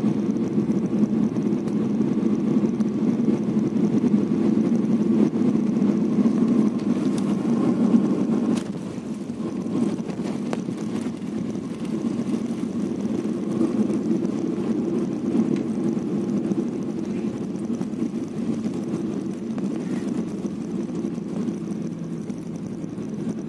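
Steady low rumble of a jet airliner's engines and rushing air heard from inside the cabin during landing and the rollout on the runway. A few faint knocks come about a third of the way in, after which the rumble eases a little and stays steady as the plane slows with its spoilers raised.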